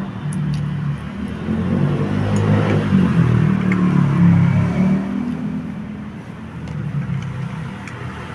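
A motor vehicle's engine passing close by, swelling to its loudest about halfway through and then fading.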